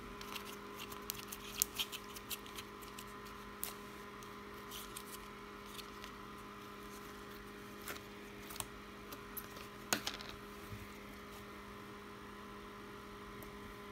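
Thick slime being poked and squished, giving small clicks and pops: many over the first few seconds, then only a few now and then. A steady electric fan hum runs underneath.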